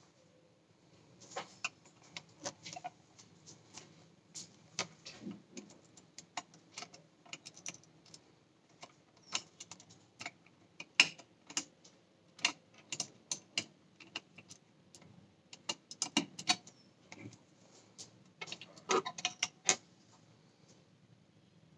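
Irregular small clicks and taps of a small screwdriver and fingers working the plastic and metal parts inside a Sony Alpha 58's lens mount, freeing the pellicle mirror. The clicks come in scattered clusters, busiest about halfway through and again near the end.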